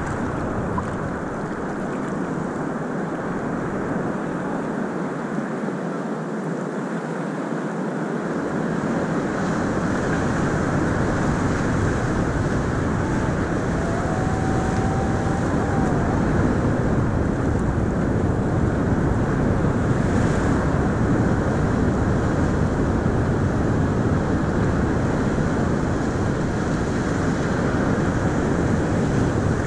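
Steady, muffled rush of ocean surf and water lapping at the surface, with wind noise on the microphone. A deeper rumble fills in about eight seconds in, and the sound grows slightly louder.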